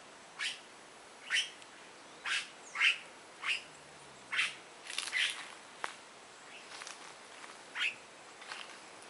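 Coatis giving short, high-pitched chirping squeaks, about ten over the stretch, spaced roughly a second apart with a pause of a second or two after the middle.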